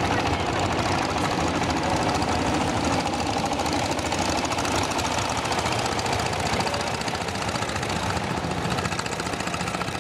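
Boat engine idling with an even, rapid beat.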